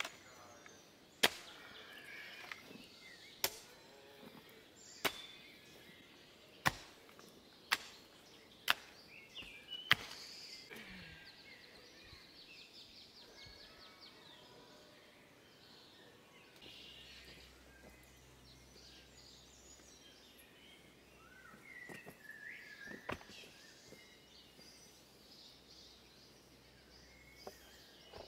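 A long-handled hoe chopping into stony soil, about eight sharp strikes roughly a second or so apart. After that comes a quiet outdoor stretch with faint bird chirps and one more knock a little after the middle.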